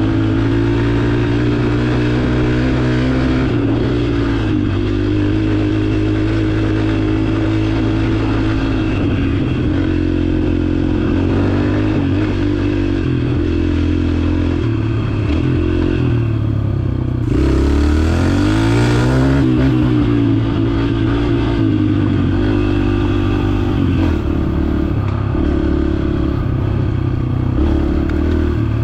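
Yamaha TT-R125 dirt bike's single-cylinder four-stroke engine running steadily under way, shifting pitch, with a rev up and back down about seventeen seconds in.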